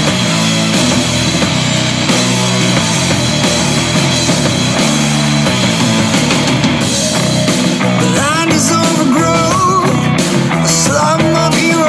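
Loud rock music backing track; a wavering lead melody comes in about eight seconds in.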